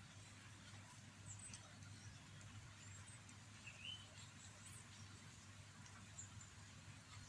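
Near silence with a steady low hum and a few faint, high, short chirps, one a little louder at about four seconds in.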